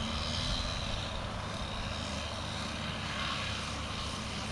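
A steady mechanical drone under an even hiss, with no change in level.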